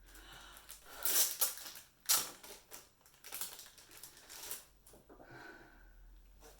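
Rustling and crackling of packaging as photo cards are taken out and handled, in several short bursts with quieter handling between.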